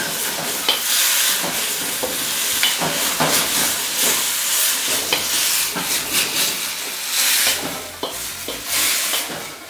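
Sauce-coated potato fries sizzling in a stainless steel wok, with repeated scraping strokes of a spatula stirring and tossing them. The sizzle eases a little near the end.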